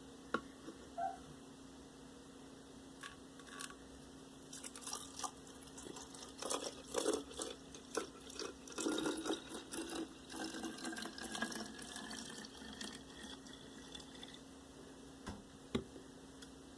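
Liquid being poured into a bottle, splashing and trickling, with a faint tone that rises as the bottle fills. Scattered clicks and knocks come from the containers being handled.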